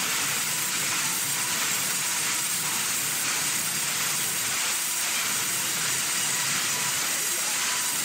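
Steady hissing noise of vertical band saws running and cutting timber, with a faint steady whine underneath.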